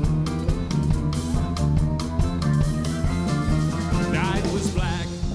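Live band playing the instrumental intro of an upbeat country song: guitars over a steady drum beat.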